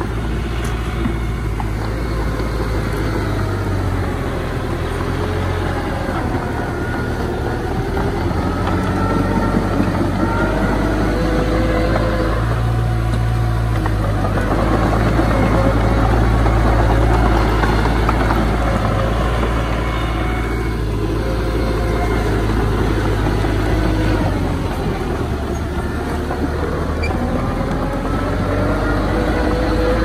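Diesel engines of heavy earthmoving machinery, a bulldozer and dump trucks, running with a deep steady rumble, their engine pitch rising and falling repeatedly as they work.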